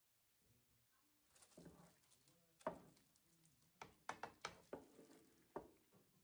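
Quiet kitchen handling: soft scraping, then a run of light, sharp taps and clicks as a white bowl is worked through cooked greens on a foil-lined tray.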